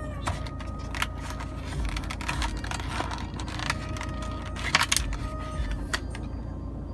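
Clear plastic blister packaging crackling and clicking as it is handled and pried open, in a run of irregular sharp crinkles, the loudest cluster about five seconds in.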